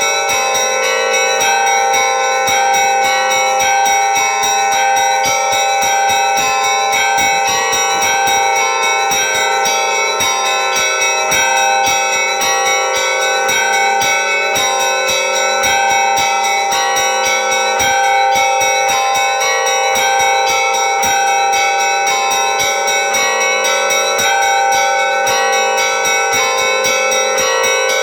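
Church bells ringing continuously: several bells struck in quick succession, their tones overlapping into a steady peal.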